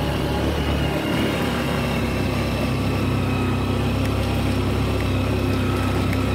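Motorcycle engine running steadily while riding up a dirt track, heard from the rider's seat with a constant rush of wind and road noise over it.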